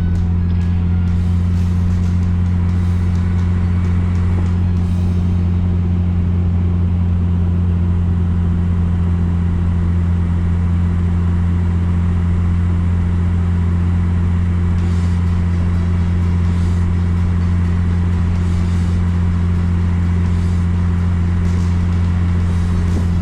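A car driving at a steady speed: a constant low drone of engine and road noise with an even hiss of tyres.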